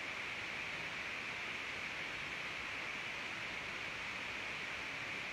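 Steady, even background hiss with a brighter high band and no other sound.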